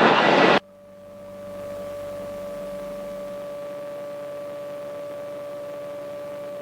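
Light aircraft engine at full takeoff power, heard through the cockpit intercom feed as a steady hum with one clear pitch. Speech cuts off about half a second in, and the hum swells back up over the next second, then holds.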